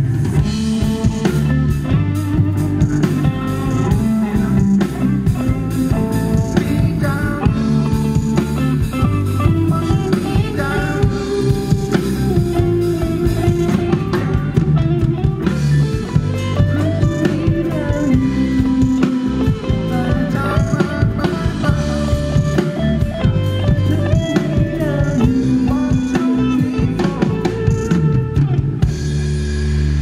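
Rock band playing live: electric guitars, bass and drum kit, loud and continuous.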